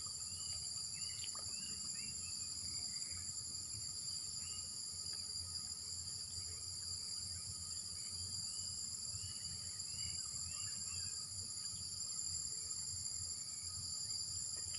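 Steady insect chorus, several unbroken high-pitched trills layered together, with scattered short chirping calls over it.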